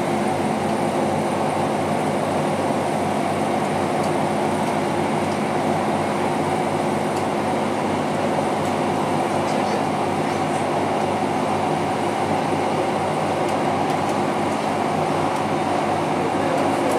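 Steady running noise inside a passenger train carriage at speed: wheels on the rails with a low, even hum.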